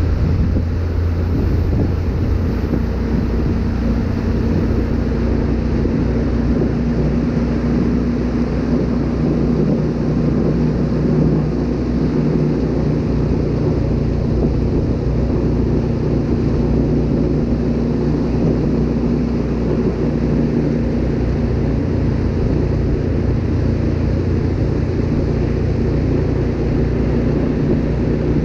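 Wakesurf boat's inboard engine running steadily under way, a continuous drone mixed with wind rushing over the microphone.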